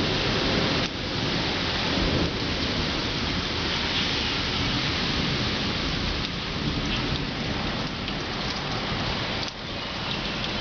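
Heavy rain falling steadily, with a continuous low rumble beneath it.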